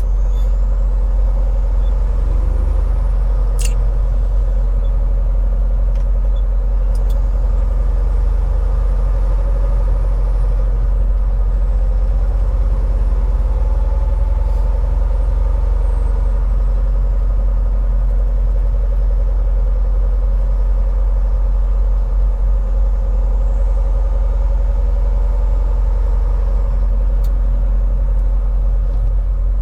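Semi-truck cab at highway cruise: a steady low diesel engine and road rumble with a constant drone, and a few faint clicks.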